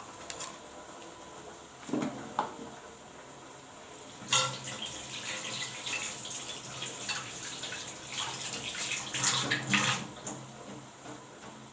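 Kitchen tap running water for about six seconds over ginger being rinsed at the sink, with a few short knocks and clatters of handling before the tap comes on about four seconds in.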